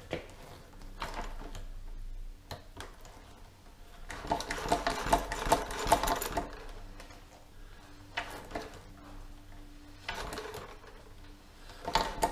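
Front forks of a Ducati 900SS being pumped up and down by hand, with one fork leg left loose on the axle so it can settle. Scattered knocks and clunks, with a dense rapid rattle about four to six seconds in.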